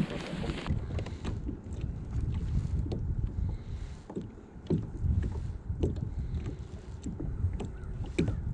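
Wind rumbling on the microphone, with water lapping against a kayak hull in short, irregular knocks.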